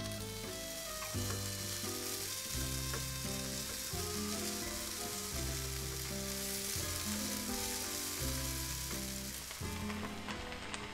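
Zucchini and glutinous rice pancakes sizzling steadily in hot oil in a frying pan, under background music with slow sustained notes. The sizzle thins out near the end.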